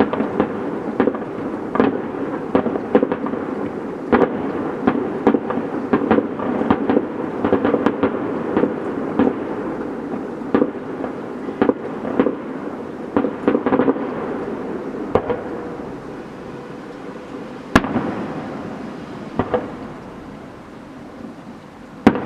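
Fireworks display: rapid, overlapping bangs and crackling over a continuous rumble, thinning to scattered bangs in the second half, with one sharp loud report about three-quarters of the way through.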